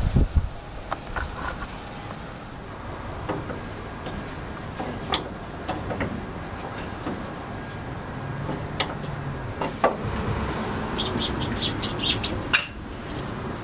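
Scattered knocks and clinks of a new exhaust pipe and its rubber hanger mounts being worked onto their pins, loudest in a few low thumps at the start. A quick run of short high chirps comes near the end.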